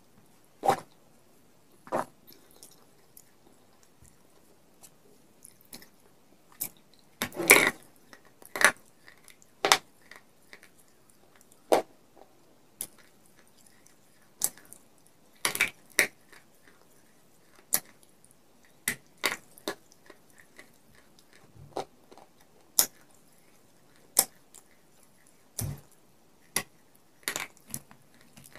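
Pieces of a fired clay pot coated in white clay paste being bitten and chewed, with sharp, irregular crunches and cracks a second or two apart.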